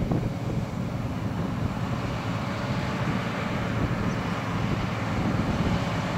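Steady low rumble of farm machinery running while a tracked combine harvests soybeans.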